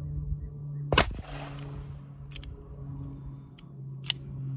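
A single shot from a Davis Industries .32 ACP pistol about a second in, sharp and short with a brief trailing echo. A few faint clicks follow.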